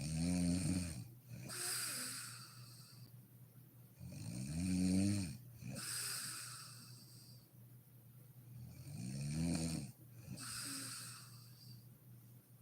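A sleeping woman snoring in slow, regular breaths: three cycles about four and a half seconds apart. Each is a pitched, rattling snore followed by a hissing breath.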